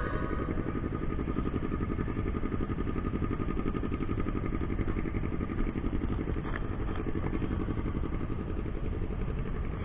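Motorcycle engine running steadily under way, with a fast, even firing rhythm and road noise.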